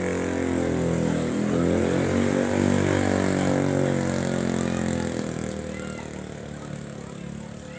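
An engine passing close by: its drone swells over the first few seconds, then fades away after about five seconds, the pitch shifting as it goes.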